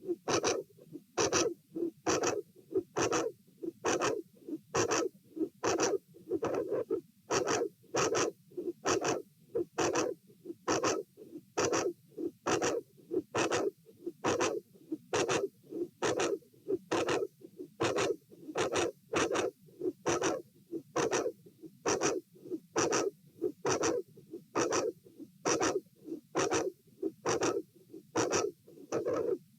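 Heartbeat heard through a stethoscope at the aortic area, paired lub-dub sounds about once a second. The rhythm is irregular, with uneven gaps and a longer pause about seven seconds in, from premature atrial and ventricular beats in a heart with a dilated aortic root.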